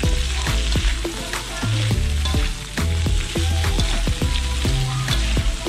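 Beef and broccoli stir-frying in a flat metal pan, sizzling as a black spatula stirs and turns them, with repeated clacks and scrapes of the spatula against the pan.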